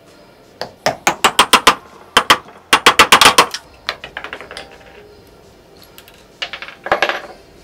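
Hammer tapping an Allen key angled through a scooter wheel's hub to knock the old bearing out: quick runs of sharp metal taps, about five a second, then a few scattered knocks and another short cluster near the end.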